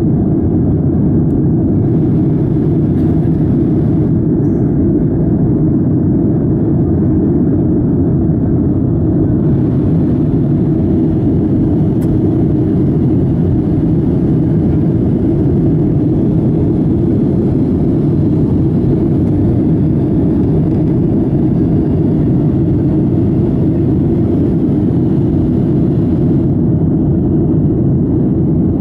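Steady cabin noise of a Boeing 757-200 in its climb after takeoff: the engines and rushing air make an even, low rumble that holds at one level throughout.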